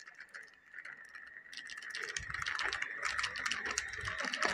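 Chaat masala being sprinkled over a plate of freshly fried potato french fries: rapid light clicks and ticks of the spice container and powder, building from about a second and a half in, with some low handling rumble.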